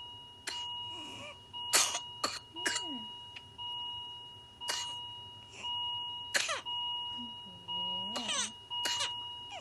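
A child with whooping cough (pertussis) in a coughing fit: short sharp coughs in clusters. About eight seconds in comes a drawn-in, pitched, rising breath, the inspiratory whoop typical of pertussis. An electronic tone beeps steadily behind it, restarting about once a second.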